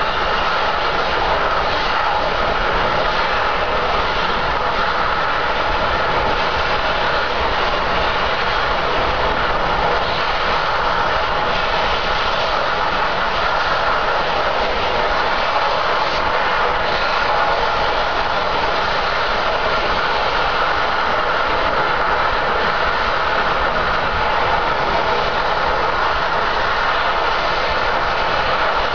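Gas escaping under high pressure from an oil drilling rig's well in an uncontrolled blowout: a loud, steady hiss, strongest in the middle and upper range, that never lets up.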